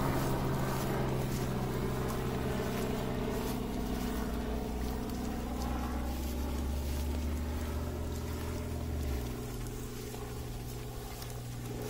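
An engine humming steadily, slowly getting quieter, its upper tones sinking a little in pitch; the lowest part of the hum drops away about nine seconds in.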